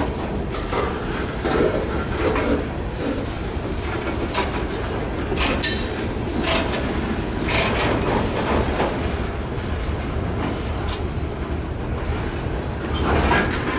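A cut of covered hopper cars being shoved past on steel wheels: a steady rumble over the rails with scattered sharp clicks and clanks from wheels and couplers, a cluster of them about halfway through.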